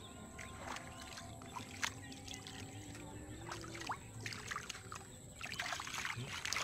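Hands sloshing and groping through shallow muddy water while feeling for fish by hand, with irregular small splashes that come thicker about five and a half seconds in.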